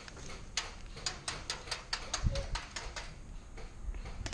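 Airsoft rifle firing a quick string of about ten single shots, roughly four a second, each a sharp crack, with a dull thump a little past two seconds in.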